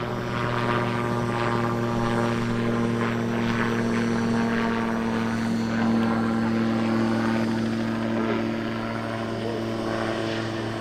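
AutoGyro Calidus autogyro in flight, its four-cylinder Rotax pusher engine and propeller running in a steady drone, the pitch sagging slightly near the end.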